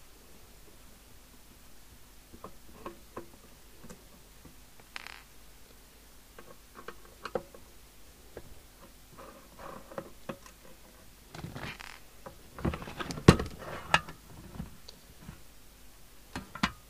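Handling and opening the metal case of a CB radio: scattered small clicks and scrapes, then a flurry of louder knocks and rattles in the last few seconds as the cover is lifted off, one sharp knock the loudest.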